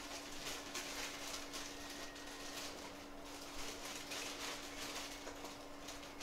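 Blade scraping old underfill glue off an iPhone 7 logic board: short, rhythmic scratching strokes about two a second. A steady low hum runs underneath.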